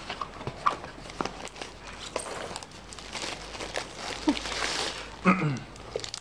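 Rustling and crinkling of a white foam wrapping sheet and thin plastic as a small device is unpacked from a cardboard box, with scattered light clicks and crackles. A brief vocal sound a little after five seconds in.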